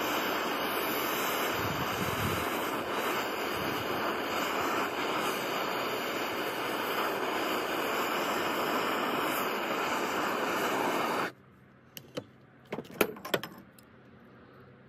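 Handheld gas torch burning steadily as it heats silver in a small crucible, cut off abruptly about eleven seconds in. A few sharp metal clinks and clanks follow as pliers grip the crucible.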